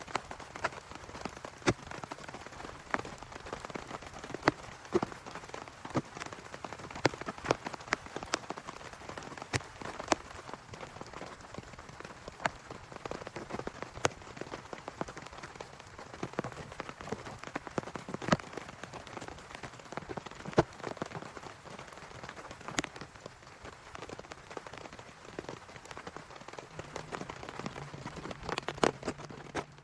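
Heavy rain falling steadily, with frequent sharp taps of single large drops striking close by.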